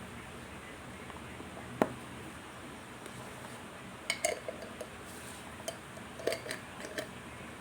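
Hard mothballs clicking and clinking against each other and their container as they are handled: one sharp click near two seconds in, then a quick run of clinks in the second half.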